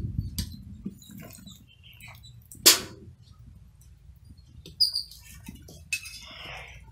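Iron tongs clinking and scraping among forge charcoal as a hot axe head is lifted out and set down on a brick, with one sharp clank about two and a half seconds in and a short scrape near the end. A bird chirps briefly about five seconds in, over a low rumble.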